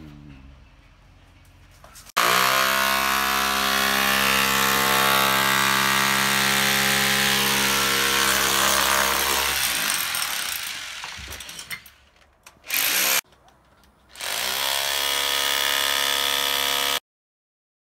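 Corded electric power tool starting up sharply about two seconds in and running at a steady high whine for about eight seconds, then winding down with falling pitch. A short burst follows, then a second run of about three seconds that cuts off suddenly near the end.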